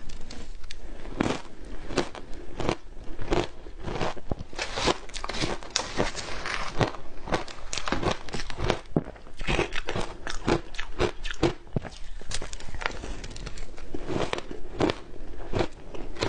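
Matcha-dusted ice being bitten and chewed: a quick, steady run of crisp crunches, several a second, with a couple of short pauses.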